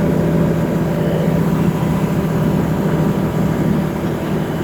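Heavy diesel truck engine running steadily under load, a loud, even low drone with a strong hum, easing off slightly near the end.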